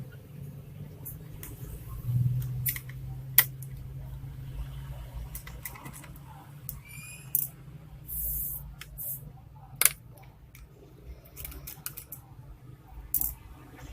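Scattered clicks and taps of a laptop's plastic casing, screws and tools being handled during disassembly, with a brief squeak about seven seconds in, over a low steady hum.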